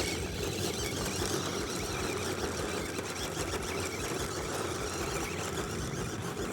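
Small-scale RC crawler's electric motor and gearbox running steadily under load as the truck tries to climb a loose soil slope in second gear.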